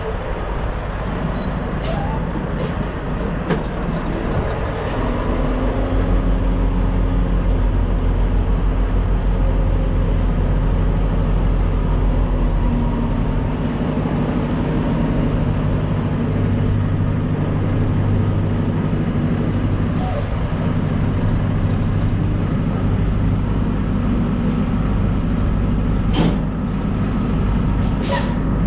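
Semi truck's diesel engine running at low speed as the truck manoeuvres slowly, its note shifting a little, with a few short sharp sounds, two of them near the end.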